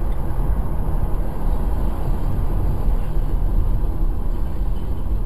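Steady road and engine rumble of a moving car, picked up from inside the cabin by its dashboard camera.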